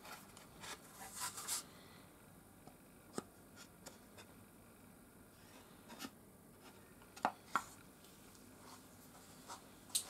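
Quiet handling of a steel vernier caliper against a sawn wooden board: soft scraping as the jaws slide over the wood, then a few sharp metal clicks.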